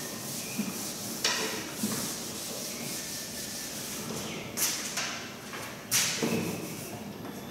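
A board duster wiped across a chalkboard in a series of rubbing strokes, erasing chalk writing, with a few louder swipes about a second in and again near the end.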